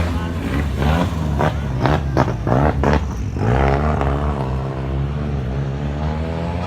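Car engine running hard under acceleration, with a run of sharp cracks about two to three seconds in, then its pitch climbing steadily as it pulls.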